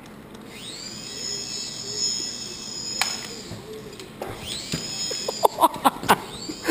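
Air Hogs mini RC helicopter's small electric rotor motor spinning up to a high whine that holds steady, drops off around the three-second mark, then spins up again. Near the end a quick run of sharp knocks and clicks comes in.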